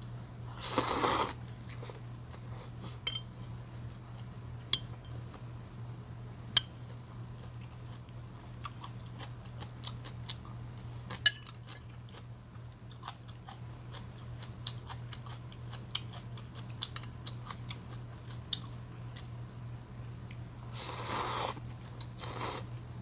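A woman slurping ramen noodles, loudly about a second in and twice near the end, with chewing and small clicks of chopsticks against the bowl in between. A steady low hum runs underneath.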